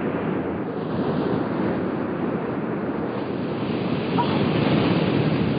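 Ocean surf breaking on a rocky shore: a steady rushing noise that grows louder about four seconds in.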